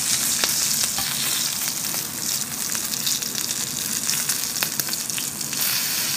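Thick rump steak sizzling in hot oil in an iron pan, its fat edge searing against the metal, a steady high hiss broken by scattered sharp crackles of spattering fat.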